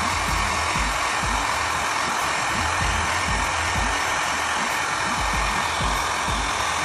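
Hot-air blower running with a steady, even rush of air, the kind used to soften a phone's adhesive. A steady beat of background music plays over it.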